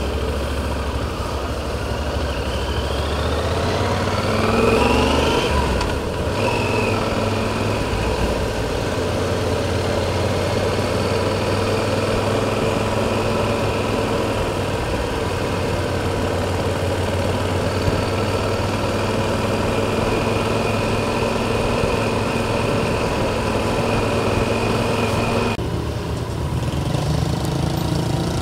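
Motorcycle engine heard from the rider's own bike under way. It rises in pitch as the bike accelerates for a few seconds, breaks briefly at a gear change, then runs steadily at cruising speed, and eases off near the end as the bike slows.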